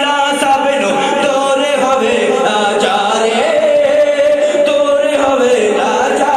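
Male devotional chanting, the voice holding long notes that slide up and down in pitch.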